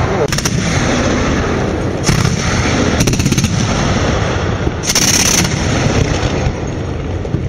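Twin-barrel 23 mm anti-aircraft cannon firing long, almost unbroken bursts of rapid automatic fire.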